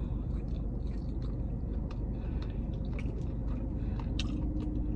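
Close-up chewing of a bite of fried chicken tender, with scattered soft mouth clicks over a steady low hum in a car cabin. A faint steady tone comes in about four seconds in.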